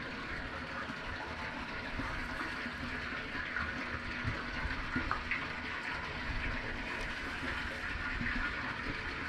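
Steady rushing, water-like noise with a low, uneven rumble underneath: water moving around a small fishing boat.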